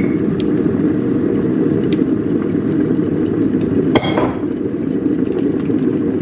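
Electric kettle coming to the boil, a steady rumbling roar of water heating, with one sharp clink about four seconds in.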